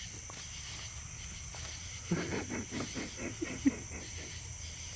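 Steady high chirring of insects with a flurry of scuffling and rustling about halfway through, ending in a sharp click, as a playful cat wrestles with its own tail.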